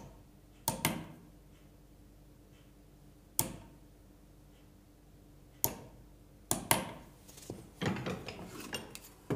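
A hammer tapping a small steel punch into the end grain of a timber leg to mark the drilling centres: a few short, sharp metallic taps, several seconds apart. Near the end comes a cluster of knocks and rubbing.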